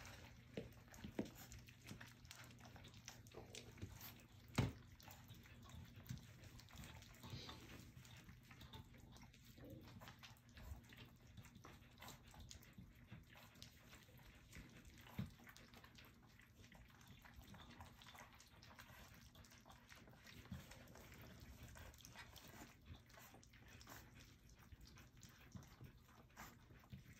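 Faint lapping and slurping of a litter of four-week-old puppies eating from a stainless steel feeding pan, with many small scattered clicks and a couple of louder clicks.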